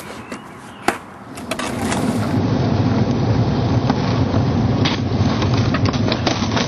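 Skateboard wheels rolling on pavement: a steady low rumble that builds up about two seconds in, with scattered clicks and one sharp click about a second in.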